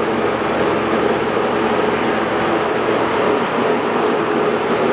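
Jet GH-1660 geared-head toolroom lathe running steadily with its spindle at 870 RPM: an even mechanical whir of the headstock gearing and 7.5 HP main motor.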